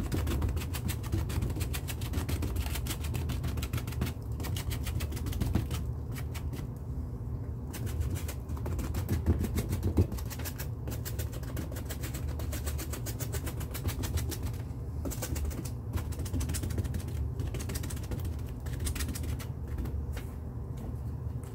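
Crumpled aluminium foil dabbed rapidly and repeatedly on a painted canvas, a fast run of crinkly taps that stops briefly a few times. A steady low hum runs underneath.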